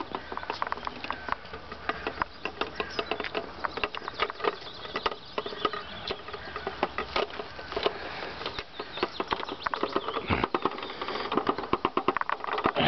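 Rapid, irregular rustling and tapping as a carp is handled in a weigh sling.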